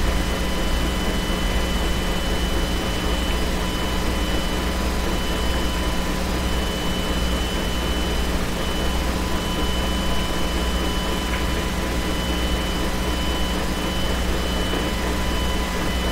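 Steady jet airliner noise: a constant low rumble under an even hiss, with faint steady high tones on top.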